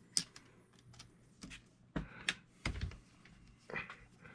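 Scattered light clicks and taps of small hard parts and hand tools being handled while working on an RC truck's suspension, about half a dozen at irregular intervals.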